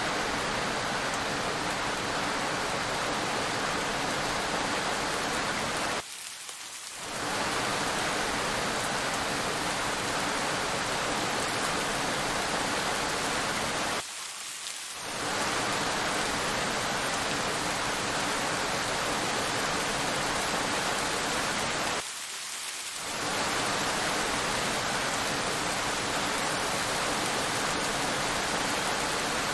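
Steady rain falling on a road, a dense even hiss of drops. Three times, about eight seconds apart, it briefly thins and drops in level for about a second.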